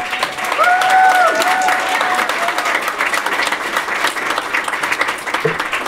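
Audience clapping steadily and loudly, with a couple of voices calling out over the clapping in the first two seconds.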